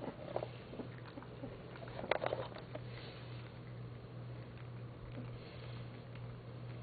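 American Alsatian puppies sniffing, licking and chewing canned meat, with small wet clicks and smacks and a louder cluster about two seconds in. A steady low hum runs underneath.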